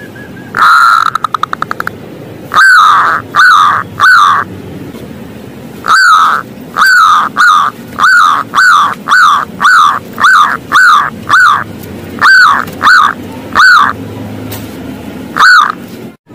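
Zebra dove (perkutut) singing: a long coo that breaks into a fast stutter about a second in, then a run of short, clipped coos at about two a second with brief pauses, and one last coo near the end.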